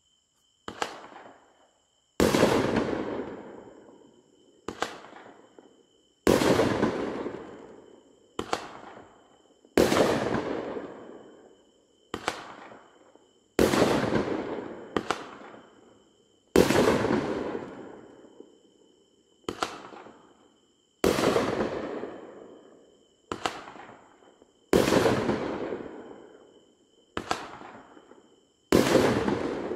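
A Bright Star 'V-Day' 500-gram fireworks cake firing its shots one after another, about one every two seconds. Short sharp pops alternate with louder bangs that each fade out over a couple of seconds.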